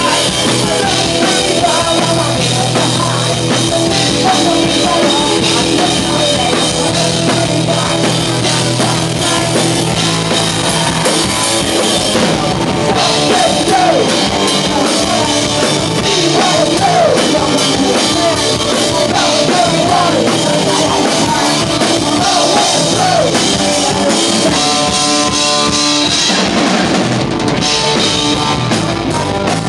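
Live punk rock band playing: electric guitar, bass and drum kit with a male singer shouting the vocal, loud and steady throughout.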